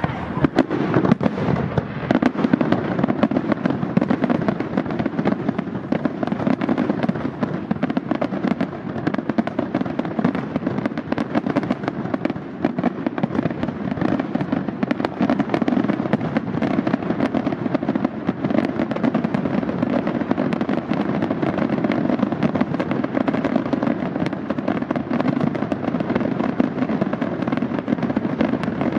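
Aerial fireworks display in a dense, continuous barrage: rapid overlapping shell bursts and crackling over a steady booming rumble, with no pause between shots.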